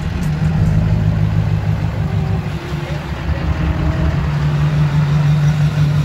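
Duramax V8 diesel pickup engine idling steadily with a low, even pulsing drone.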